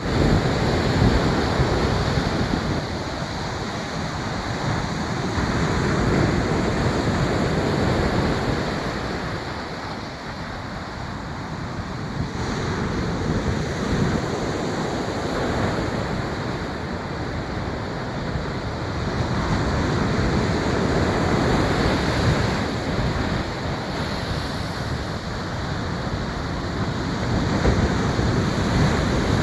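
Ocean waves breaking and washing on the shore, a continuous rushing surf that swells and fades in slow surges every several seconds.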